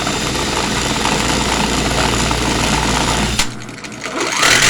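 Angle grinder motor running steadily at full speed while being deliberately burned out, with a hole drilled into its motor housing. About three and a half seconds in the sound cuts out abruptly, then picks up again near the end.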